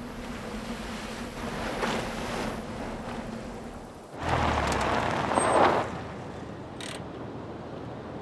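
Ocean surf breaking on a beach: a steady wash of waves, with one louder wave surging in a little past halfway before it settles back.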